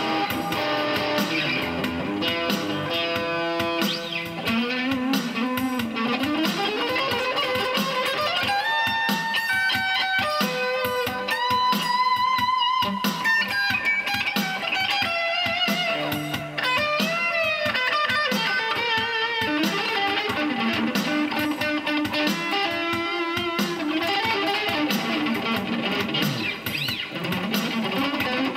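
Slow shuffle on electric guitar: a lead line of riffs with notes that slide and waver over a steady rhythm accompaniment.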